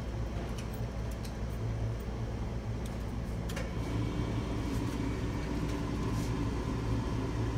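The big-block 454 V8 of a Chevy 454 SS pickup idling steadily, running again after years standing. A higher steady hum joins about four seconds in, and there are a few faint clicks.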